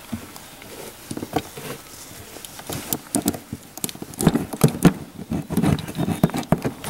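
Hand tool cutting and picking at the rubber lining around the exhaust opening in a snowmobile belly pan, trimming it for clearance: an irregular run of clicks, scrapes and crackles, busier and louder in the second half.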